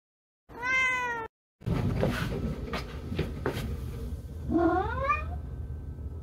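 Domestic cat meowing twice: a short meow just after the start that falls slightly in pitch, then a second meow about four and a half seconds in that rises in pitch. Between the two, curtain fabric rustles with a few light clicks.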